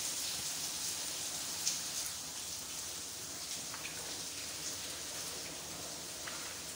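A pot of hot egusi soup sizzling steadily as a little water is poured in and it is stirred with a spoon, with a few faint clicks.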